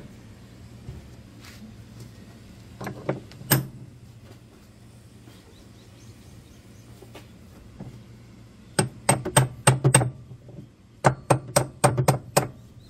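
A hammer tapping a socket wrench's T-bar on the nut that holds a top-loading washing machine's inner tub, a few knocks at a time to loosen it. The knocks come in two quick runs of sharp metallic strikes, about five a second, in the second half.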